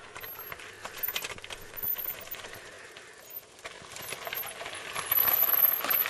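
Mountain bike coming down a rocky trail: tyres crunching over stones and the bike's frame and chain clattering, a quick run of small clicks and rattles that gets louder about five seconds in as the bike comes close.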